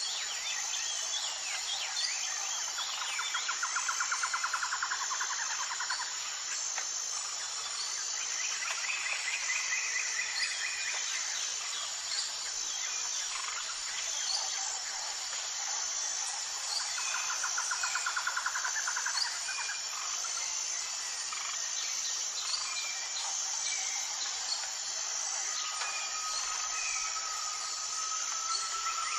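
Tropical jungle ambience: a dense, steady insect chorus with birds calling over it. A short high note repeats about every second and a half, rapid trills come twice, a higher trill comes once, and a long steady whistle sounds near the end.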